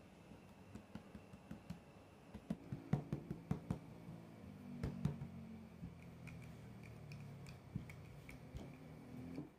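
Faint soft taps and knocks of hands patting and pressing dough flat on a floured wooden board, with a cluster of sharper knocks about three seconds in. In the second half a wooden rolling pin rolls over the dough with a low rumble.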